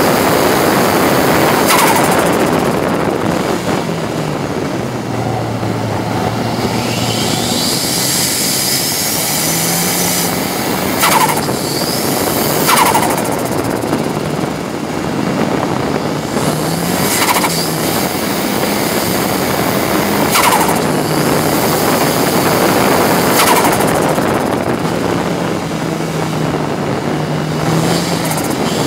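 Ford Sierra RS Cosworth race car's turbocharged four-cylinder engine at racing speed, heard from inside the stripped cabin: the engine note rises and falls as the car accelerates and lifts off, over loud road and wind noise. Several short sharp bursts break in along the way.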